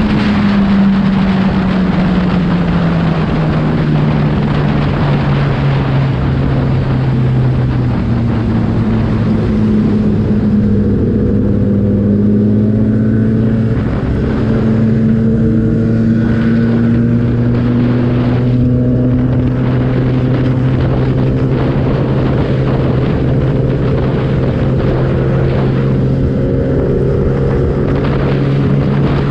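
Kawasaki ZX-10 inline-four motorcycle engine running at steady road speed, heard onboard under a loud rush of wind and road noise. Its pitch drops over the first couple of seconds, then holds fairly steady.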